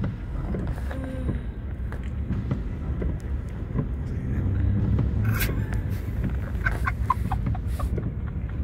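Steady low rumble of a car driving on a wet highway, heard from inside the cabin, with a sharp click a little past halfway.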